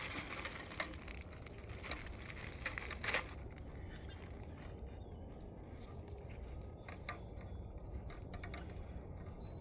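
Faint handling noises: a few light clicks and rustles as a washer is worked onto the end of a UV bulb, over a low steady hum.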